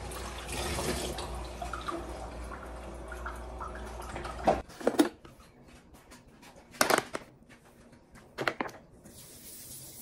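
Kitchen tap running into a sink, a steady stream of water that cuts off about halfway. Then a few short knocks, as of objects handled on a countertop.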